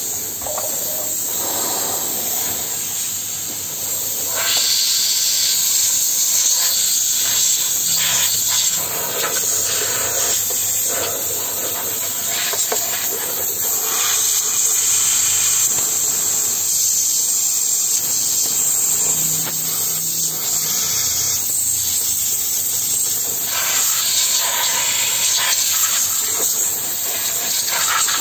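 Steam cleaner gun jetting pressurised steam into a coffee machine's housing: a steady loud hiss that gets louder about four seconds in and then swells and eases slightly.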